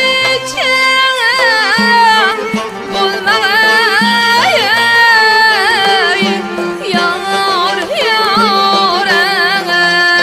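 A woman singing an Uzbek classical song in a wavering, ornamented voice. She is backed by a long-necked lute she plays herself, frame-drum strokes and a small traditional ensemble.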